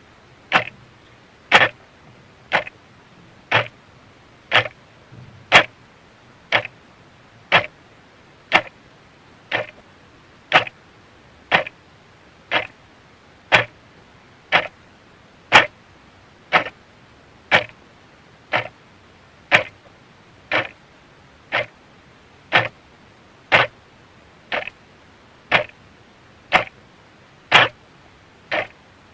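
A clock ticking steadily, one sharp tick about every second.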